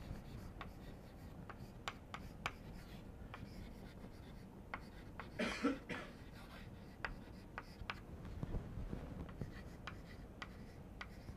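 Chalk writing on a blackboard: a faint run of irregular taps and short scratches as the chalk strikes and drags across the board. A brief cough-like sound comes about halfway through.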